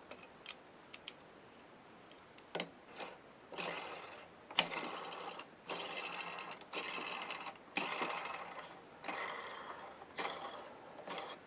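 M10×1.5 left-hand threading die being screwed along a lathe's worn cross-feed lead screw, metal scraping on metal in about seven short turns with brief pauses between them, starting a few seconds in after a couple of light taps. Uncompressed, the die rides the worn thread without cutting anything.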